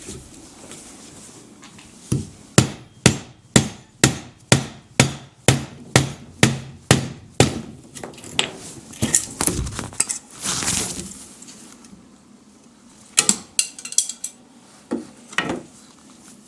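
Hammer striking wood in a steady run of blows, about two a second, then a rasping noise lasting about two seconds, then a few scattered blows: knocking a stuck, glued wooden part loose.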